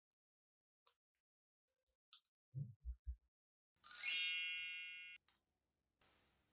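A bright ding with many ringing tones, fading over about a second and then cut off abruptly. Before it come a few small clicks and several soft, low thumps.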